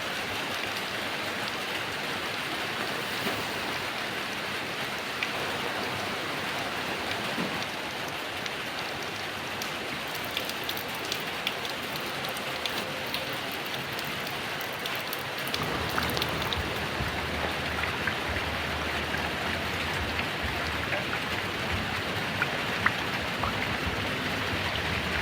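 Heavy rain falling steadily, with scattered sharp drop hits. About two-thirds of the way through it grows a little louder and deeper.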